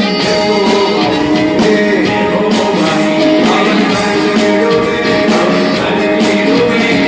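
Live band playing a song: keyboard, guitar and drums with a steady beat, and vocals.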